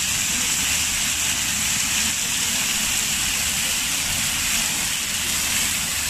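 Many vertical jets of a fountain splashing down into stone basins: a steady hiss of falling water that never lets up.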